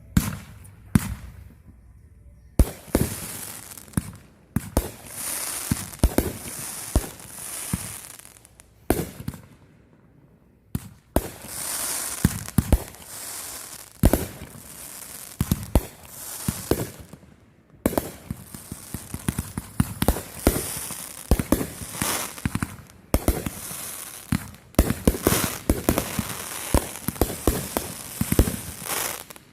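Fireworks going off in dense volleys of rapid cracks and pops over a crackling hiss, each volley lasting several seconds, with brief lulls between them.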